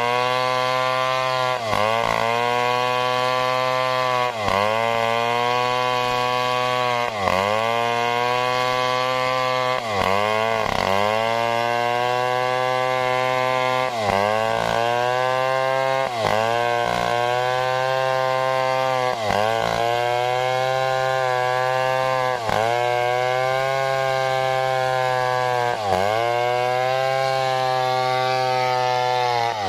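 Stihl two-stroke chainsaw running at full throttle, ripping lengthwise through a coconut palm trunk. The engine pitch dips briefly and recovers every two to three seconds under the load of the cut.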